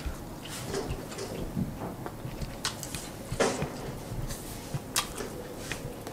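Faint, scattered small clicks and rustles of handling at a dining table, with a couple of sharper taps about three and a half and five seconds in.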